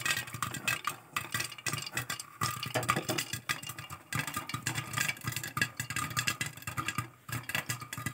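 Popcorn kernels popping rapidly and irregularly in hot ghee under a glass lid, with a steady low hum beneath the pops.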